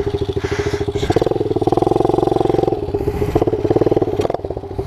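Kawasaki KLX110 pit bike's single-cylinder four-stroke engine on an open exhaust, idling with a fast pulsing putter, revved up about a second in and held, then dropping back, with a second shorter rev near the end before settling to idle.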